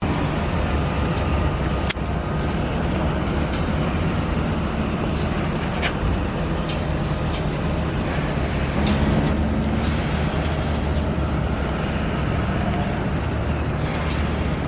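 Steady low background rumble, with a single sharp click about two seconds in.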